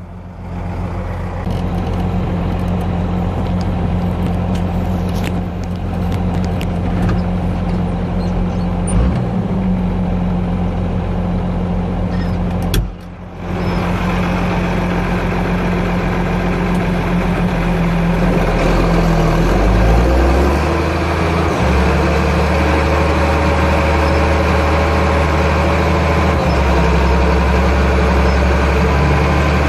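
Ford 8830 tractor's diesel engine running steadily under test. The sound drops out briefly about 13 seconds in, and about 20 seconds in the engine note changes and then settles.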